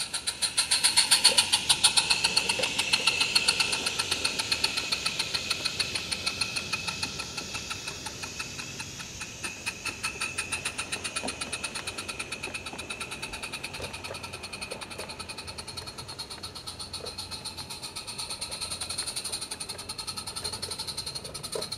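Live steam garden-railway locomotive chuffing in a fast, even rhythm with steam hiss as it hauls passenger coaches, loudest as it passes close about a second in, then fading as it runs away.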